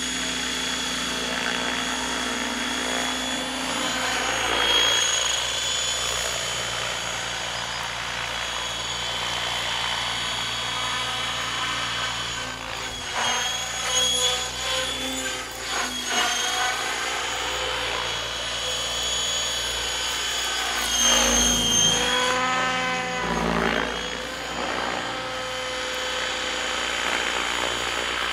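Radio-controlled model helicopter in flight: a steady high whine of its motor and rotors, with the pitch sweeping up and down about two-thirds of the way through as it manoeuvres.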